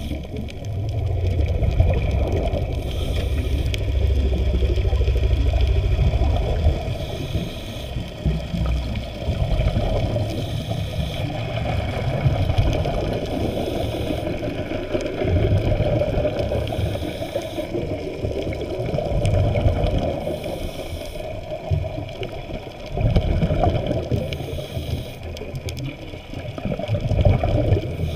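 Muffled underwater water noise heard through a waterproof camera housing, a dull wash that swells and fades every few seconds.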